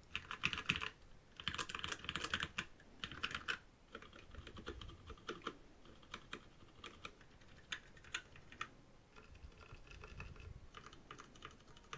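Typing on a Machenike K500 mechanical keyboard with tactile brown switches and PBT keycaps: quick runs of key clicks in bursts with short pauses. The typing is louder in the first four seconds and softer after.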